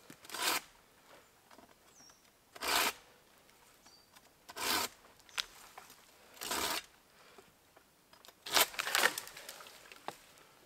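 Hand pruning saw cutting a dead, dry branch in slow strokes. Four separate strokes come about two seconds apart, then a quicker, louder flurry of strokes near the end.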